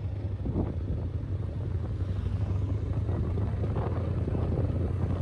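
Motorcycle engine running steadily while riding: a constant low drone with a rushing noise over it.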